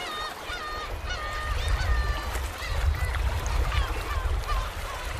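A flock of gulls calling, many short overlapping honking cries, with a low rumble underneath.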